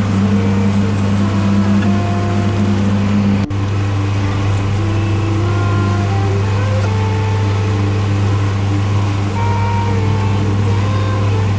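Abra boat's engine running with a steady low hum, under background music with a slow melody. There is a brief dropout about three and a half seconds in.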